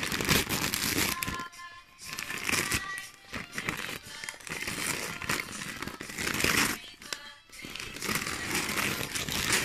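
Gift-wrapping paper crinkling and rustling in uneven bursts as a toddler's hands pull at it to unwrap a present.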